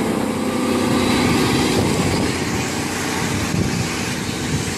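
A vehicle engine running steadily as it descends a mountain road, mixed with road and wind noise.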